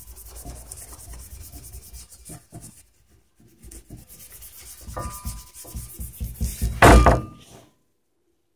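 Scrubbing pad rubbed rapidly back and forth over a sticker on a metal trailer hitch, scuffing it up for paint. The rubbing pauses briefly about three seconds in, starts again with a louder scrape near the end, then stops.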